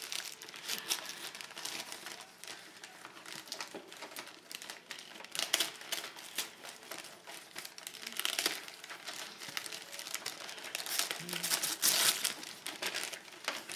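Wrapping paper being torn and crumpled while a present is unwrapped: irregular rustling and crackling, with louder rips about five, eight and twelve seconds in.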